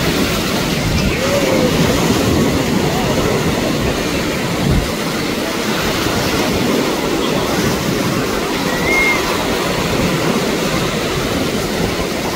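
Steady wash of choppy sea water and surf, with faint distant voices.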